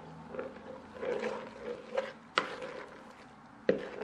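White plastic scoop stirring a runny slime mixture in a plastic bowl: irregular soft, wet scraping and sloshing, with two sharp knocks about two and a half and three and a half seconds in.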